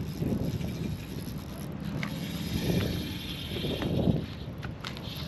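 Wind rumbling on the microphone in gusts, with a faint high hiss and a few light clicks.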